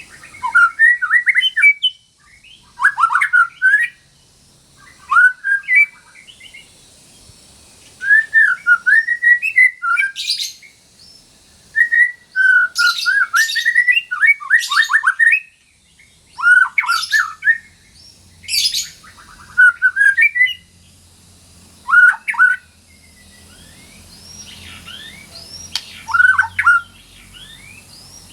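White-rumped shama (murai batu) singing in short, varied phrases with brief pauses between them; some phrases carry quick high sweeping notes.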